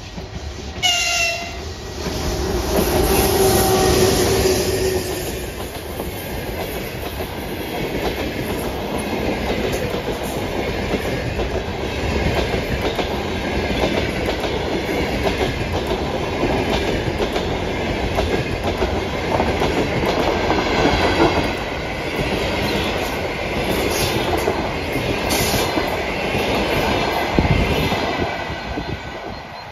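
EP1 AC electric locomotive and its passenger train passing close by at speed. A brief high pitched tone sounds about a second in, the locomotive goes by loudly over the next few seconds, and then the coaches roll past with steady wheel-on-rail noise. A low thump comes near the end.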